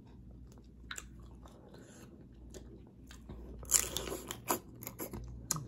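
Close-up eating sounds of boiled shrimp: quiet chewing at first, then about four seconds in a louder burst of sucking on the fingers, followed by a few sharp lip smacks.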